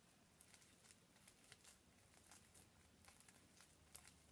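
Faint, soft sticky crackles and clicks of fluffy slime made from glitter glue, shaving foam and liquid starch being squeezed and kneaded by hand, with one slightly louder click near the end.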